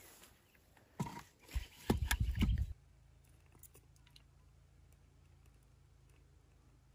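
Split firewood handled and set into a steel fire ring: a few knocks and scrapes over about two seconds. After that come only faint scattered ticks of dry kindling being arranged in the ring.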